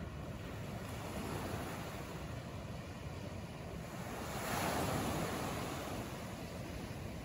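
Small sea waves breaking and washing up a sandy beach: a steady surf rush, with one wave swelling loudest about four and a half seconds in and then washing back.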